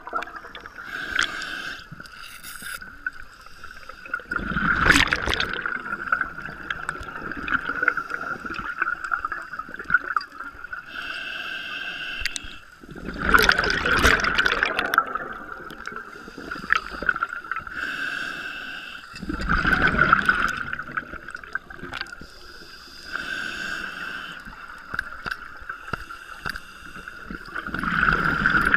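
Scuba regulator breathing heard underwater: a loud bubbling rush of exhaled air about every six to eight seconds, with softer hissing inhales between. A steady high whine runs underneath.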